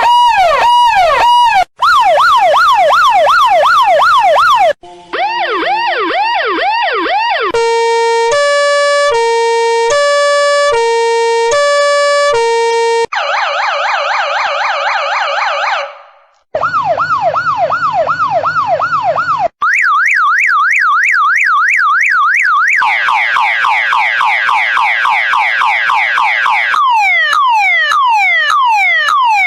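Emergency-vehicle siren sound effects cut together a few seconds each: fast up-and-down yelping and wailing sirens, a two-tone siren alternating between a high and a low note about a third of the way in, and quick falling sweeps near the end.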